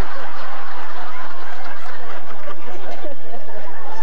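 Audience laughing: a continuous mass of many overlapping voices, with no single speaker clear.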